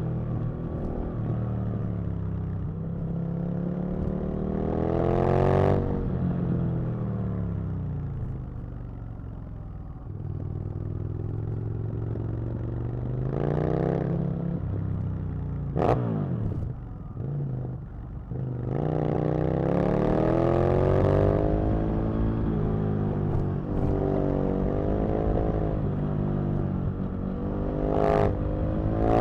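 Aprilia RSV Mille's 60-degree V-twin engine pulling hard through repeated accelerations, its pitch rising four times and falling off on the overrun between them, with a quick sharp rev blip about halfway through.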